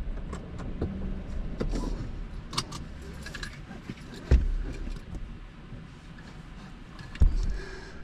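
Small clicks and rattles inside a stopped car, with two heavy thumps, one about four seconds in and one near the end, over a low steady cabin hum.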